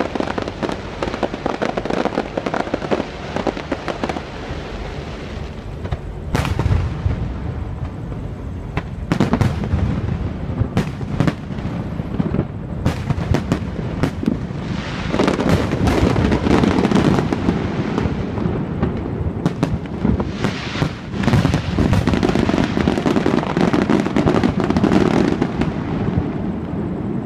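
Aerial fireworks display: repeated bangs of bursting shells with crackling between them, coming thicker and louder in the second half.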